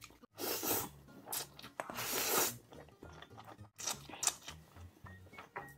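Close-miked slurping and chewing of spicy instant noodles and broth, with two long slurps in the first half and short wet smacks and clicks after.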